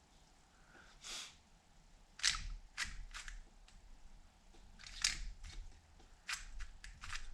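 Plastic pieces of a YJ MGC magnetic Square-1 puzzle clicking and clacking as it is handled and turned: a string of sharp, irregular clicks, the loudest about two, five and six seconds in.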